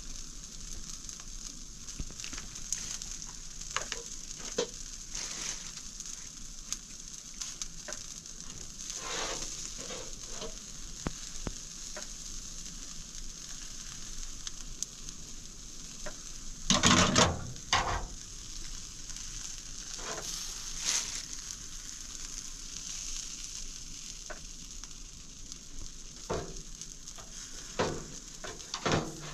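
Food sizzling as it fries in a pan, a steady high hiss, with occasional clinks and knocks of a utensil stirring. A louder run of knocks comes about seventeen seconds in.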